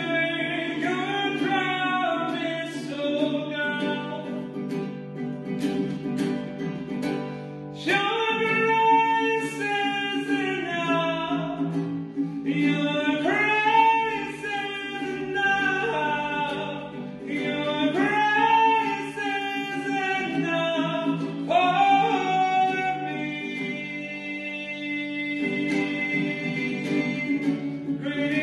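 A meditation song during communion: a singing voice in long, slow phrases over instrumental accompaniment.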